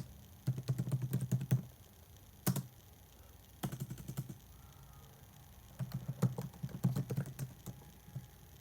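Typing on a keyboard: runs of quick keystroke clicks, each with a soft thud, in several short bursts separated by pauses, picked up by an iPhone 7's microphone.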